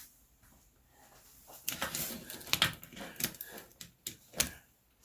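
Irregular sharp clicks and clinks of hand tools working on the bolts of a snowblower engine's pull-start cover, in a string lasting a few seconds after a quiet start.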